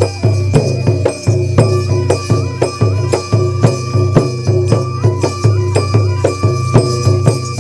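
Background music with a steady percussive beat over a sustained low bass line, in a traditional folk style.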